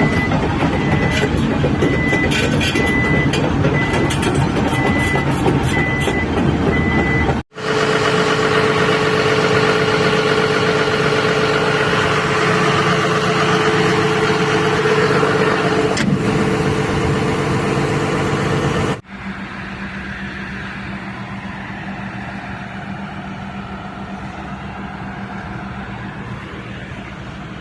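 Hydraulic excavator running, its diesel engine droning steadily, with an evenly repeating high beep during the first third. The sound drops to a quieter engine hum after a cut about two-thirds of the way through.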